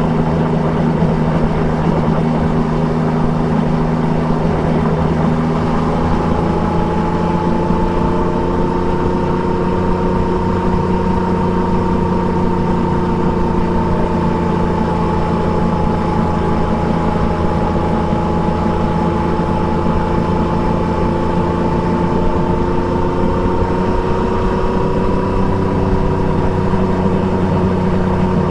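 Triumph Trident 660's three-cylinder engine with an Akrapovic exhaust, running steadily while the bike cruises, over wind and road noise. The engine note changes about six seconds in, then holds with only a slight drift in pitch.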